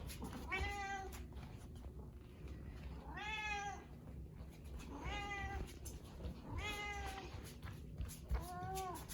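A domestic cat meowing repeatedly, five drawn-out meows about one every one and a half to two seconds, calling insistently to its owner.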